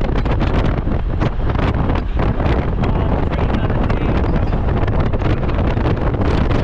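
Wind buffeting the microphone of a moving vehicle, a steady low rumble broken by irregular gusts, with road noise underneath.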